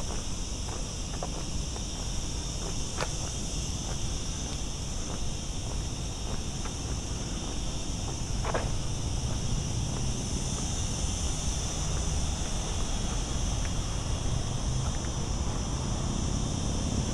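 Insects shrilling in a steady, unbroken high-pitched drone, over low wind rumble on the microphone, with a few faint ticks.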